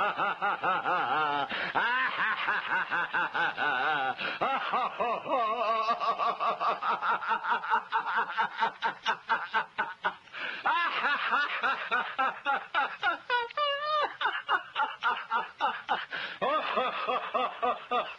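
Sustained laughter in quick, rhythmic ha-ha pulses, as in a guided laughter exercise.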